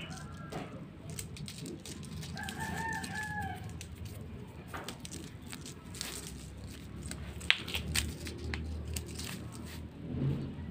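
A single drawn-out animal call lasting about a second, two to three seconds in, like a fowl's. Underneath are the rustle and small clicks of nylon fishing line and a metal swivel being handled, with one sharp click a little after halfway.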